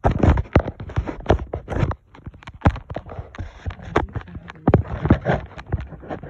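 Phone handling noise: a rapid, irregular run of knocks, bumps and scrapes as the phone and its microphone are moved about and rubbed, starting suddenly.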